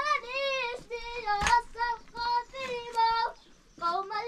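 A high-pitched voice singing unaccompanied, holding long, wavering notes with short breaks between phrases. A single sharp click sounds about one and a half seconds in.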